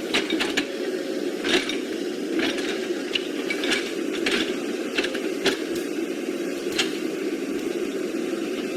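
Small electric motors and gearboxes of radio-controlled toy construction vehicles running with a steady whirring hum, with irregular plastic clicks and knocks over it.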